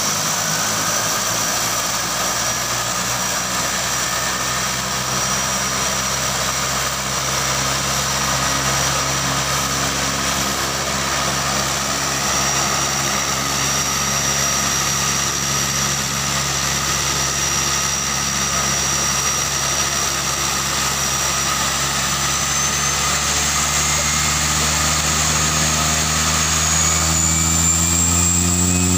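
Pilatus PC-6 Turbo Porter's turboprop engine running at ground idle with the propeller turning: a steady low drone under a high turbine whine. In the last several seconds the pitch rises as power comes up and the aircraft begins to taxi.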